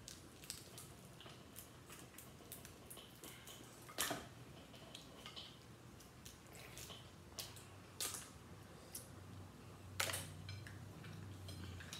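Snow crab legs being cracked and pulled apart by hand: a run of faint shell cracks and wet squishes, with three sharper snaps about four, eight and ten seconds in.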